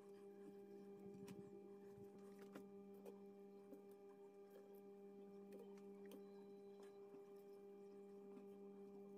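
Near silence: a steady low hum with a few faint, scattered clicks and taps.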